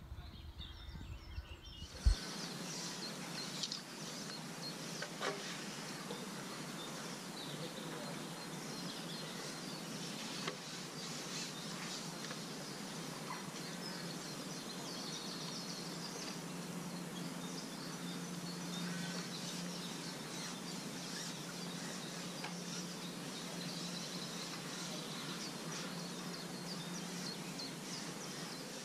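Outdoor ambience of birds chirping and singing over a steady background hiss, with a single sharp click about two seconds in.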